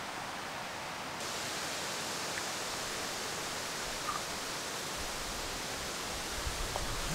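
Steady outdoor background hiss that turns brighter about a second in, with a low rumble from about five seconds in and a couple of faint small clicks.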